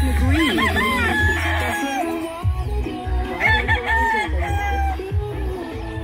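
Several gamefowl roosters crowing over one another, with clucking. Background music with a heavy bass beat plays underneath.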